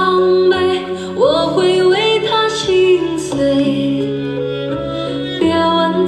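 A song with a singer's held, gliding notes over a steady accompaniment, played through a QJ-0808Y portable Bluetooth party speaker.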